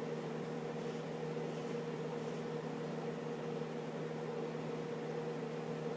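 Microwave oven running: a steady hum with an even whir, while the chewing gum inside heats to the point of smoking.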